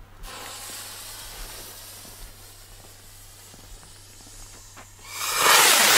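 A firework rocket's fuse sizzling for about five seconds after being lit. Near the end the rocket motor ignites with a loud rushing whoosh as it lifts off from the launch rack.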